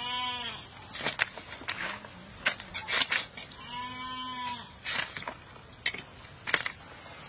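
A farm animal calls twice, two long calls about three and a half seconds apart, over a steady high insect drone. Sharp clicks and knocks come in between as a blade cuts up a raw chicken.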